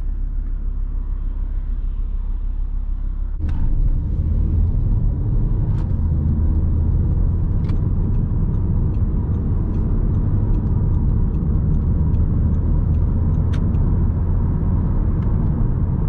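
Audi RS3 8P's turbocharged five-cylinder engine and road noise as the car drives along, with a steady low rumble. It gets suddenly louder about three and a half seconds in and stays up.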